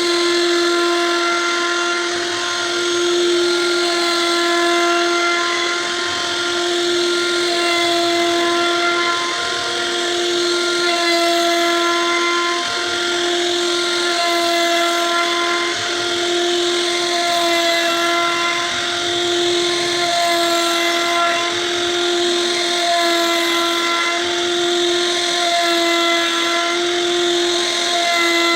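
CNC router spindle running with a steady high whine while its bit cuts wood, the cutting hiss swelling and fading every few seconds.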